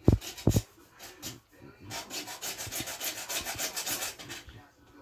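Two sharp knocks, then, from about two seconds in, a run of fast back-and-forth rasping strokes: a hand tool scraping or cutting a part being fitted to a water heater.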